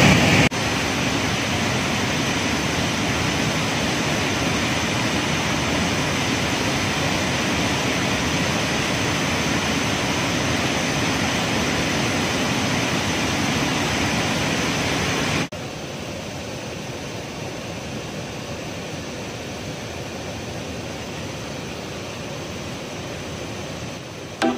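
Waterfall in spate, a steady rush of falling and churning water; the river is high and fast after two days of rain. The rush drops suddenly to a quieter level about two-thirds of the way through.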